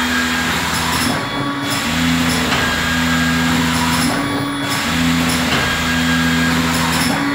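Brapack SPK 250 stick-pack packaging machine running: a steady mechanical hum with a cycle that repeats about every three seconds.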